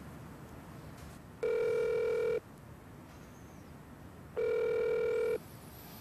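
Telephone ringback tone: two steady one-second tones about three seconds apart, the signal that the called phone is ringing at the other end.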